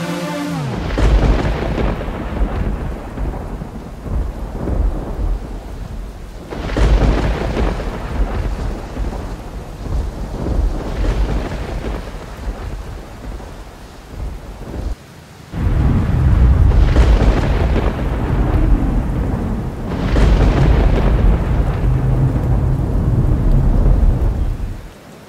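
Thunder rumbling over steady rain, several rolls swelling and fading; the longest and loudest rolls come in the second half.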